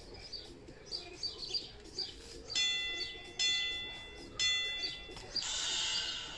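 Small birds chirping with short high calls, then three ringing chime tones a little under a second apart, each dying away, followed by a brief rushing hiss near the end.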